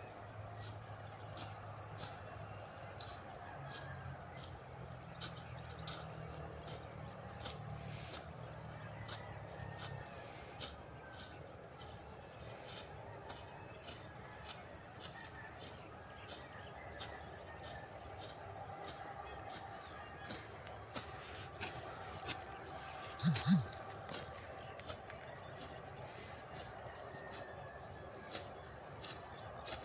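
A steady high insect drone with a regular series of short, crisp strokes, about one a second, as a hand sickle cuts through grass and rice stalks. A brief louder sound breaks in about two-thirds of the way through.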